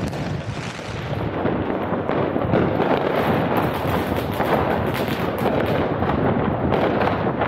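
Fireworks and firecrackers going off all around in a dense, unbroken barrage of overlapping bangs and crackles.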